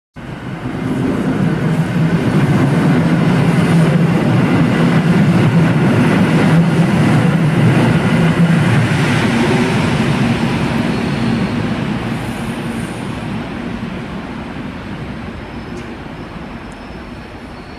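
PKP electric train passing through a station: rumble and a steady low hum that swell within the first second, stay loud for several seconds, then die away slowly as the train recedes.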